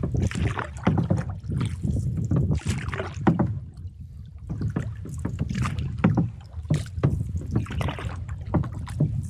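Water slapping irregularly against the hull of a canoe under way on choppy water, with wind buffeting the microphone as a steady low rumble.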